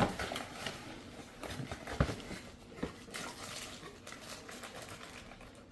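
Cardboard accessory box and packaging being handled and opened: a few light knocks and taps, and rustling about three seconds in.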